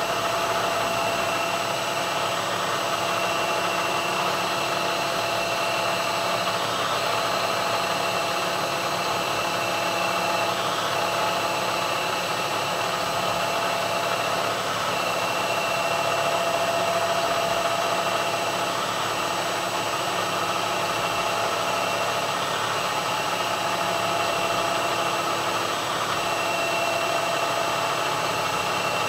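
Milling machine spindle running steadily through a CNC spot-drilling cycle in aluminium plate, a steady mechanical hum with a higher whine that comes and goes several times as the machine moves from hole to hole.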